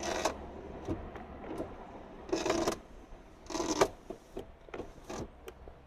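Ford Mondeo Mk3 front-door power window regulator working, squeaking in three short spells even with freshly greased cables; the owner takes it most likely for a dying window motor.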